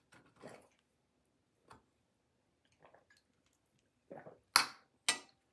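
A person drinking water from a glass: a few faint swallows, then two louder, sharp gulps about half a second apart near the end.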